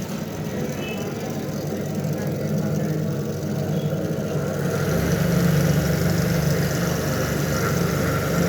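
A steady low engine-like hum that grows louder about five seconds in.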